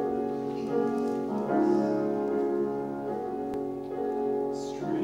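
Grand piano playing a slow introduction in held chords that change about every second.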